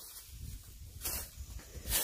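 Footsteps of rubber boots on a dirt yard: two scuffing steps, about a second in and near the end, the second louder as the walker comes closer, over a low rumble.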